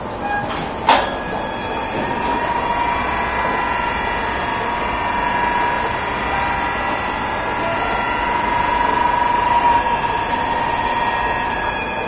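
Automatic rotating ultrasonic cleaning line running: a steady machine noise laced with several thin high tones. A single sharp click comes about a second in.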